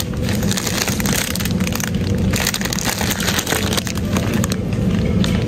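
Crinkly plastic wrapping of an instant-noodle multipack crackling as it is grabbed and pulled off a shelf, in a run of quick crackles over a steady low background hum.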